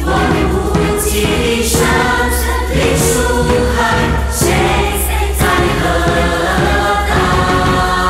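Music: a choir singing a song in Chinese over instrumental backing with a steady deep bass.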